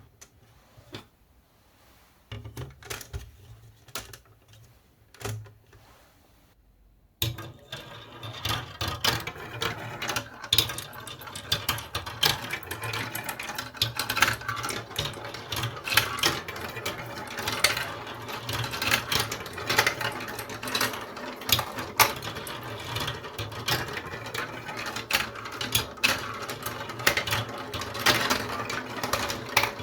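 Scattered single clicks, then about seven seconds in a dense, continuous rattle of many small balls rolling and clicking through a toy marble-run track.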